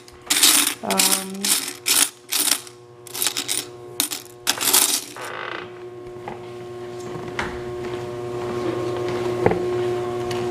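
Coins from a soda machine's coin box clattering and jingling in quick bursts as they are poured and handled. After about five seconds the clatter stops and a steady machine hum with a few faint clicks takes over.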